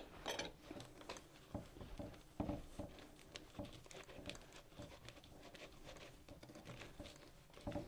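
Plastic-gloved hands working crumbly pastry dough of flour, butter and water in a metal bowl: a faint, irregular patter of small crackles and scrapes as the crumbs begin to come together.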